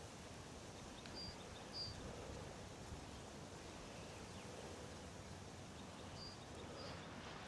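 Faint steady wind noise, with a small bird giving two pairs of short high chirps, about a second in and again after about six seconds.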